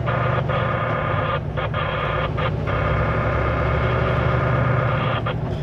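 Kenworth W900L semi truck's diesel engine running steadily at low speed, a constant drone with no change in pitch.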